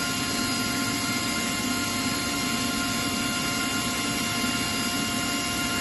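Atlas Copco ZT250 oil-free rotary screw air compressor running steadily: an even mechanical rush with several constant high-pitched whining tones over it.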